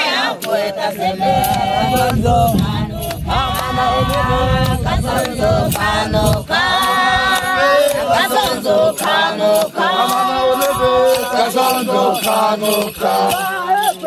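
A group of Hadza men and women chanting and singing together in phrases, with sharp percussive beats through the singing. A low rumble sits under the first half.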